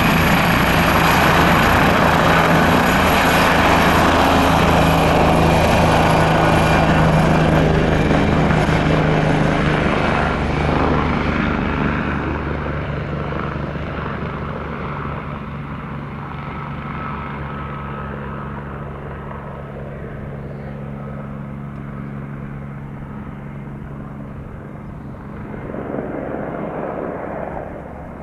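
Leonardo AW169 twin-engine helicopter: rotor beat and high turbine whine, loud for about the first ten seconds, then fading and growing duller as it moves away, with a brief swell near the end.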